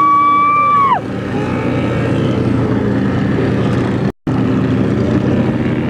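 Powerboat engines running steadily, with a high held tone over them for about the first second. The sound cuts out for an instant about four seconds in.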